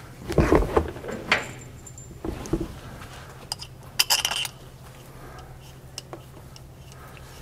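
Metal clinks and rattles as the Allison 1000 transmission valve body is seated by hand and its bolts are handled and started, in a few short bursts through the first half, the sharpest about four seconds in.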